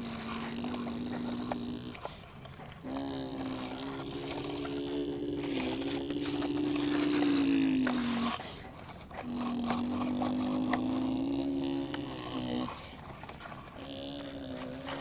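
Electric motor whine of a radio-controlled construction model, running in spurts of a few seconds with short pauses between them, its pitch rising a little and then dropping as the load changes.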